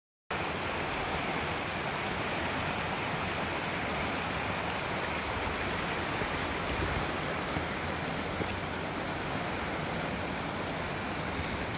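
Small river running, a steady rush of water that cuts in abruptly just after the start.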